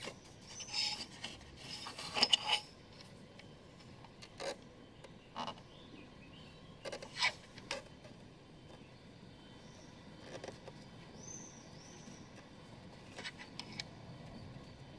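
Faint rubbing and scraping with a few short clicks and taps, spread out: fingers handling a small crimped wire terminal pin against the plastic instrument cluster housing and its connector.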